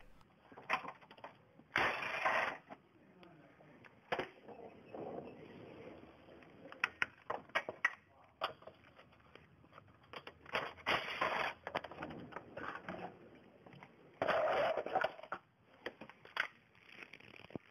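Irregular clicks, scrapes and rattles of hand work on a car's underside, as the plastic lower splash shield and its fasteners are worked loose, with a few longer scraping spells.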